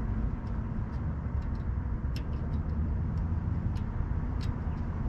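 Small clicks and taps of wire connectors being pushed back onto the air conditioner's hard start kit and capacitor terminals, over a steady low outdoor rumble.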